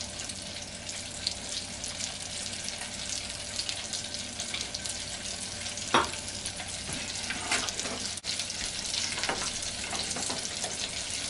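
Hot oil at about 178 °C sizzling steadily around panko-breaded stuffed potato croquettes in a pot, with scattered crackles and a sharper pop about six seconds in.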